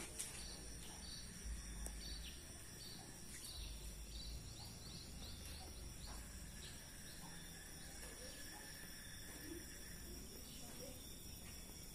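Faint outdoor ambience of insects chirping steadily at a high pitch, with a run of short, quick high chirps during the first four seconds.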